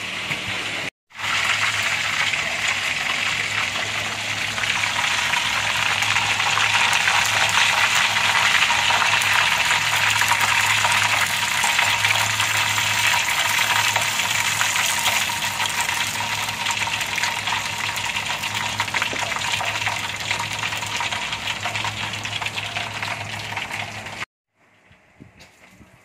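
Whole fish deep-frying in hot oil in a steel wok: a steady, dense sizzle and crackle of bubbling oil that cuts off abruptly near the end.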